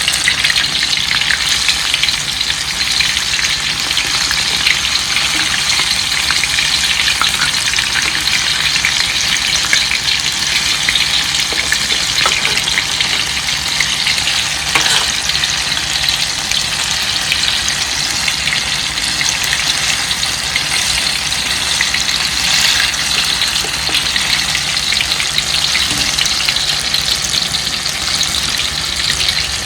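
Banana fritters (pisang goreng) frying in hot oil: a steady sizzle with scattered small crackles.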